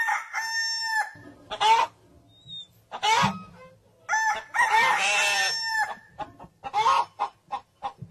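Chicken sounds: a rooster crowing and hens clucking, several separate calls with a long one in the middle, then a run of short quick clucks near the end.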